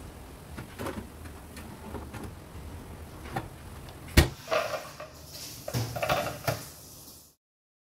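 Metal knocks and clatter of a baking tin handled at a small countertop electric oven, with scattered light clicks, one sharp knock about four seconds in that is the loudest, and two bursts of clattering after it. The sound stops abruptly near the end.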